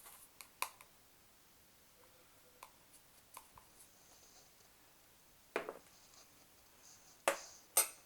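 A measuring spoon clicking and tapping against a mug and ingredient containers as dry ingredients are spooned in: scattered light taps, with three sharper knocks in the second half.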